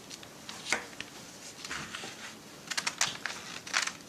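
Scissors cutting paper: a few short crisp snips, about a second apart.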